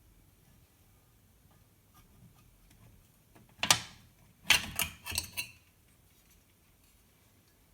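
Olivetti Lettera 32 portable typewriter clacking: a few faint ticks, then one sharp clack, and about a second later a quick run of five or so sharp clacks.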